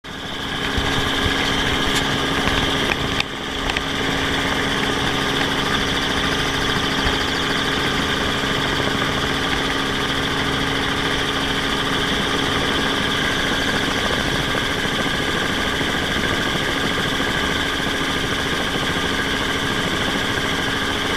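Helicopter engine and rotors running steadily, heard from a camera mounted on the helicopter: a constant high whine over a steady hum, with a brief dip in loudness about three seconds in.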